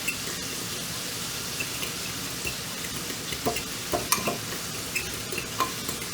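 Spoon stirring thick tartar sauce (mayonnaise, relish and lemon juice) in a bowl, with a run of light clicks and taps of the spoon against the bowl in the second half, over a steady hiss.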